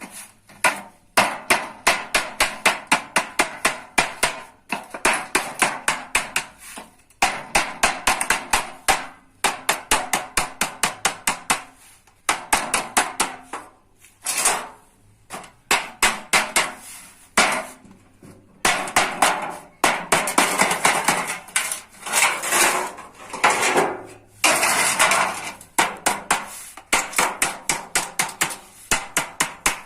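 Rapid hammer blows on sheet metal, several strikes a second in runs of a few seconds with short breaks between them, as a metal bread-baking tray is hammered into shape.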